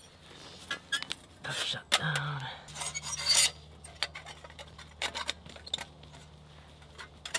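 Steel panels of a folding Firebox wood stove clinking and scraping against each other as the stove is slotted together, a series of small sharp clicks with a couple of louder scrapes a second or two in.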